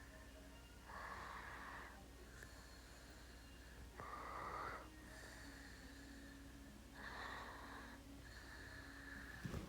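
Slow, noisy breathing: a rushing breath about every three seconds, with a faint thin wheeze between the breaths. A short sharp sound comes near the end.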